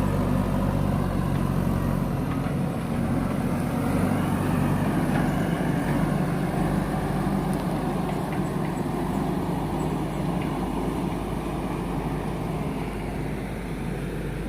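Heavy diesel engine running steadily with a deep, even drone, from machinery at work pulling a tractor out of swampy mud. It eases slightly over the last few seconds.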